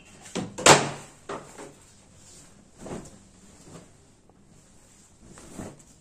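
Crepe suit fabric being lifted, shaken out and spread on a table: cloth rustling, with a sharp flap of the fabric just under a second in and softer swishes around three seconds and near the end.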